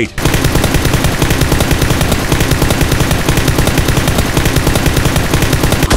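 Sustained automatic machine-gun fire: rapid, evenly spaced shots in one unbroken burst.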